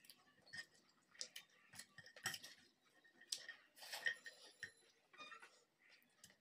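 Quiet eating by hand: irregular soft clicks and ticks from fingers mixing rice on a china plate and from chewing.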